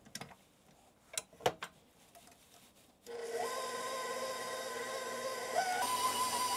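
A few light metal clicks as the dough hook is fitted to a KitchenAid stand mixer, then about three seconds in the mixer's motor starts and runs with a steady whine, the hook kneading bread dough in the stainless bowl. Nearly six seconds in the whine steps up in pitch as the speed is raised toward medium.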